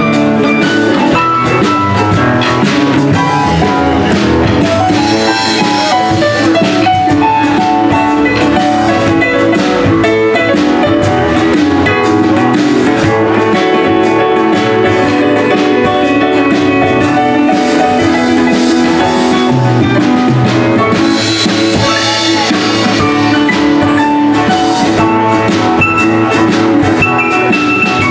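Live band playing an instrumental passage: a Casio electronic keyboard played over drum kit, electric bass and guitar.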